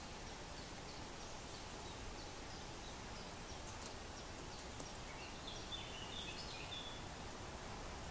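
Faint, short, high bird chirps over a steady hiss, with a quick run of them about five to seven seconds in and a few sharp ticks a little before.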